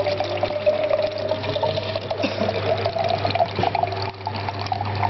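Electric pomegranate juicer running with a steady hum, many small irregular clicks and crackles as the fruit is pressed, while juice pours from its spout into a glass jug.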